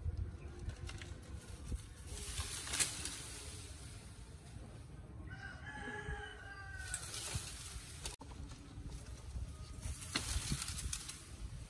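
A rooster crows once near the middle, one long call of about a second and a half that falls slightly at the end. Around it are short rustles of leaves and branches as a small monkey climbs.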